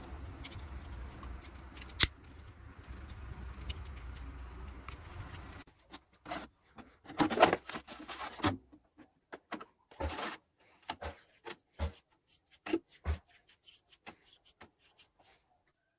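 A steady low mechanical hum cuts off abruptly about five and a half seconds in. It is followed by a run of light clicks and clinks, like small metal parts being handled at a workbench, thinning out toward the end.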